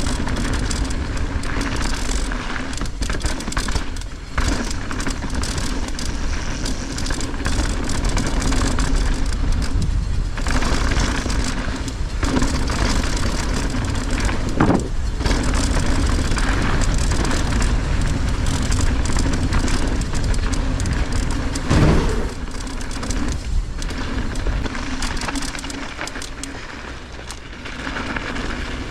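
Mountain bike rolling along a dirt trail: a steady rumble of tyres and wind on the microphone, with the bike rattling and a few sharper knocks over rocks and roots, the loudest about 22 seconds in.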